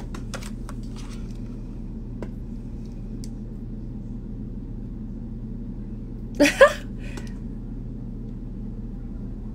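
Steady low electrical hum in a small room, with a few light clicks in the first second from a makeup compact and brush being handled. A brief vocal sound from the woman comes about six and a half seconds in.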